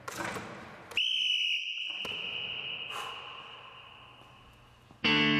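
Basketball passes striking the tossback and the player's hand as a couple of quick knocks, then a single long high-pitched signal tone that starts sharply about a second in and fades away over some four seconds, marking the end of the timed passing drill.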